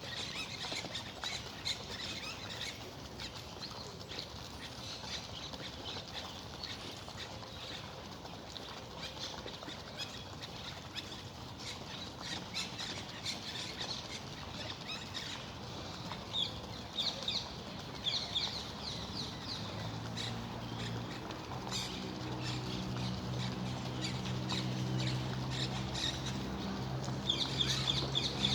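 Steady rush of park fountain water with birds chirping now and then. A low steady hum joins about two-thirds of the way in.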